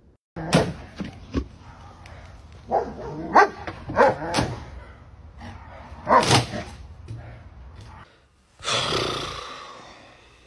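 A dog barking, a string of about nine loud barks at uneven gaps, a few of them in quick pairs. Near the end comes a rush of hissing noise that fades away.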